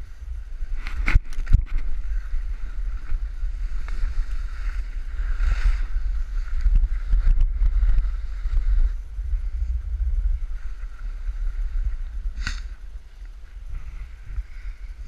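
Wind buffeting a head-mounted camera's microphone, a steady low rumble, with sharp knocks about a second in and again about twelve seconds in.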